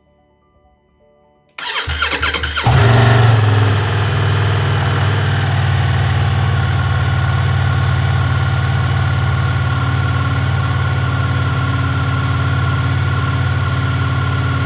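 Ducati Multistrada V4S's V4 engine cranked by the electric starter for about a second, then catching with a brief rise in revs and settling into a steady idle. It is the first start after an oil and filter change, run to warm the oil before the level is checked.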